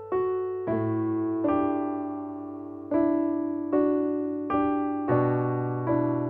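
Background piano music: slow single notes struck about once a second, each ringing and fading away, over low bass notes that come in twice.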